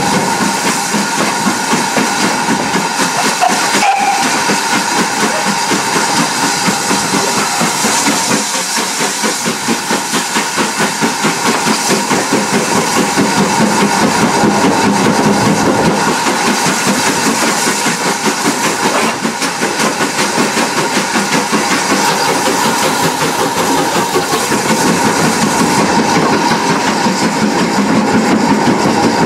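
GWR 4575-class 'Small Prairie' 2-6-2T steam tank locomotive under way, heard up close from the footplate: a loud steady hiss of steam over a regular pulsing beat from the exhaust.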